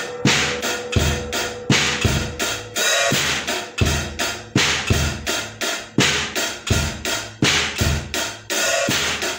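Song intro played on drum kit alone: bass drum, snare and cymbals keeping a steady quick beat of about three hits a second.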